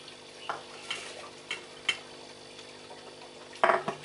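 Kitchenware being handled at a mortar and pestle: a few sharp clicks and knocks of a plate and the pestle, over a steady low hum. Near the end, a brief loud voice-like sound.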